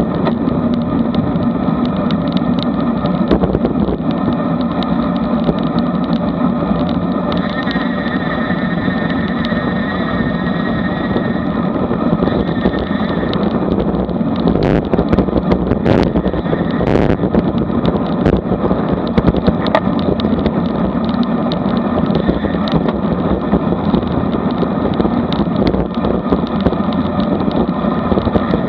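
Steady wind rush over a bike-mounted action camera's microphone, mixed with road-bike tyres humming on asphalt at about 20–24 mph. A few sharp clicks come around the middle.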